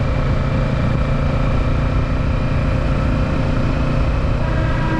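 2023 Kawasaki Ninja 650's parallel-twin engine running steadily while the bike is ridden, a low rumble that holds level throughout.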